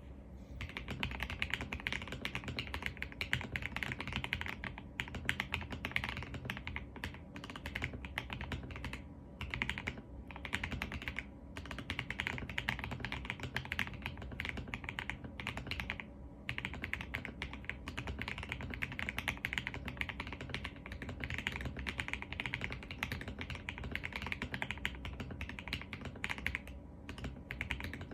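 Typing on a Libra Mini mechanical keyboard with Leobog Icesoul switches: a fast, continuous stream of keystrokes with a few brief pauses.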